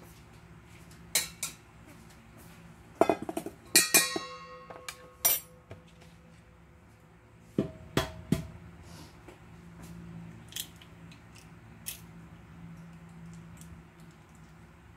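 Stainless steel pots and utensils clinking and knocking against each other and the counter: scattered sharp metal knocks, with a cluster about three to four seconds in where one strike rings on for about a second.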